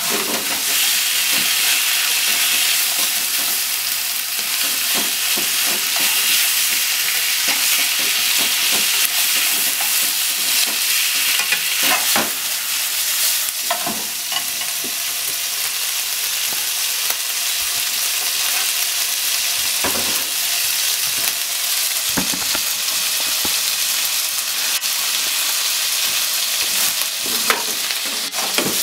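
Sliced pork and onion sizzling steadily in oil in a frying pan while being stir-fried with chopsticks, with a few sharp clicks as the chopsticks strike the pan.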